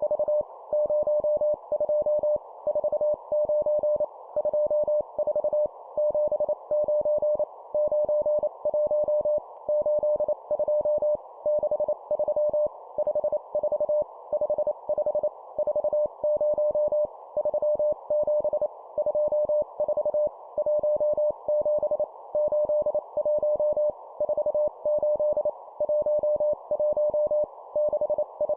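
Morse code practice tone near 600 Hz keyed at 25 words per minute, sending number groups as quick runs of dots and dashes with short pauses between groups.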